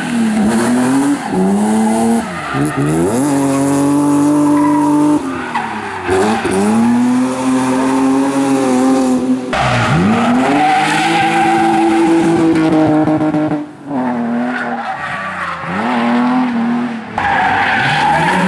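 Competition car engine revving hard, its pitch falling and rising again and again, with tyres squealing and skidding. The sound jumps abruptly a few times, about five, ten and seventeen seconds in.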